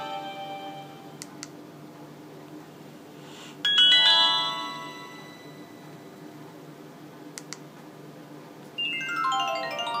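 Nokia 2310 message alert tones previewed through the phone's small speaker while its tone list is scrolled: a short multi-note chime a little over a third of the way in, then a quick rising run of notes near the end. Faint clicks of the navigation key come before each tone.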